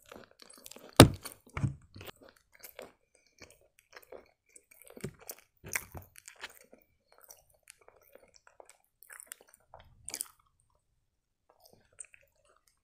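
Close-up chewing of a soft chocolate pastry: wet smacking and small crunches, with a sharp click about a second in. The chewing thins out over the last couple of seconds.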